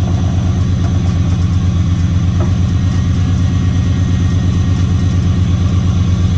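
1987 Chevrolet Monte Carlo SS's V8 idling with a steady, even exhaust pulse.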